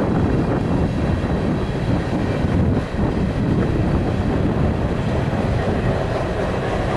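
Empty coal hopper cars of a freight train rolling past on the rails, a steady noise of wheels and cars.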